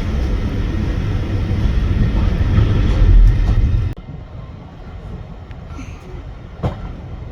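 Heritage railway train running with a loud, low rumble that cuts off suddenly about four seconds in, leaving a much quieter background with a couple of sharp clicks near the end.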